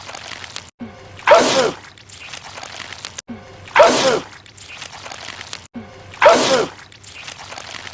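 A man sneezing hard three times, about two and a half seconds apart, each a sudden loud burst with a falling pitch, spraying out goo. The three sneezes are identical.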